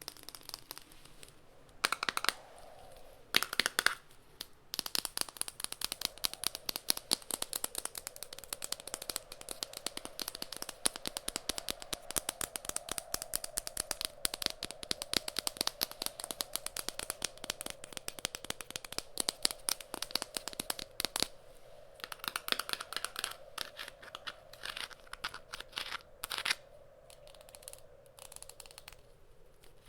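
Rapid close-miked tapping and scratching with fingers or nails on objects, a dense run of quick clicks, after two short louder bursts near the start.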